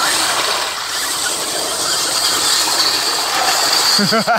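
Two radio-control mud trucks racing through thick mud, their electric motors and geared drivetrains whining steadily as the tyres churn.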